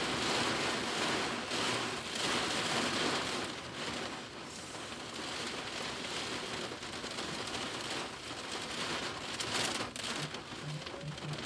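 Heavy rain falling on a vehicle's roof and windows, heard from inside the cab; the downpour swells and eases in waves.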